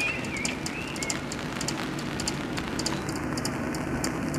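Rain pattering on an umbrella: irregular sharp drop ticks over a steady hiss of rain. A stepped electronic tone fades out within the first second.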